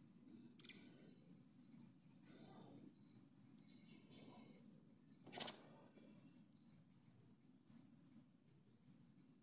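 Faint high-pitched insect chirping, cricket-like, pulsing about twice a second, with a couple of short high bird chirps and a single sharp click about halfway through.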